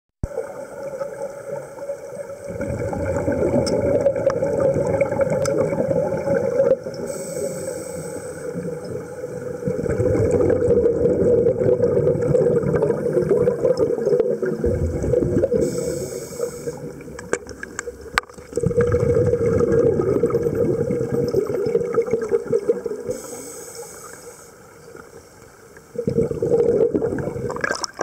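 Scuba diver breathing through a regulator, heard underwater: four long, rumbling rushes of exhaled bubbles of several seconds each, separated by short hissing inhalations through the regulator, about every eight seconds.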